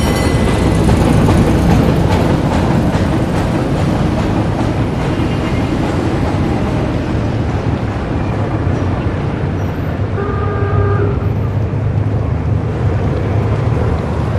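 1920s-style city street ambience: a steady, loud low rumble of traffic, with a horn sounding once for about a second near the end and a brief high whistle-like tone at the very start.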